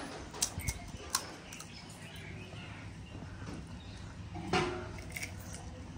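Crisp fried pani puri shells being cracked open with fingertips: a few short, sharp cracks, several in the first second and a couple more near the end.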